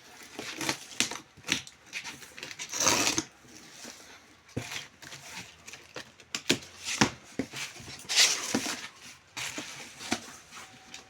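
A cardboard box and its packaging being opened by hand: rustling and scraping in irregular bursts, with scattered sharp knocks and clicks, and longer scrapes about three and eight seconds in.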